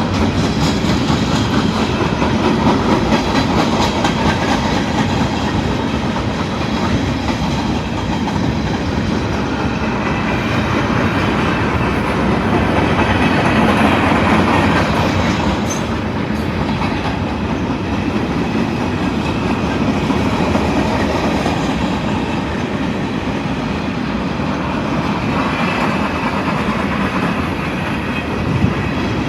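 A train's railroad cars rolling steadily past, their wheels running over the rails.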